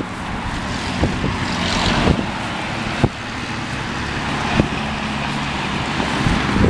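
Steady vehicle running noise: a low engine hum under road noise, with a few sharp knocks at about one-second intervals early on and another a little later.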